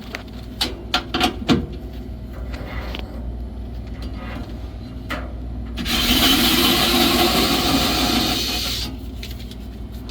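A few sharp handling clicks, then a Vessel electric screwdriver driving a screw for about three seconds, a loud grinding noise that stops abruptly.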